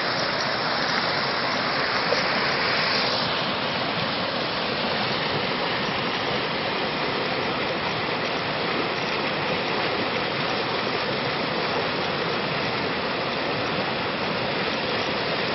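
Mountain creek rushing over rocks in a small whitewater cascade close to the microphone: a steady splashing rush, a little brighter for the first three seconds.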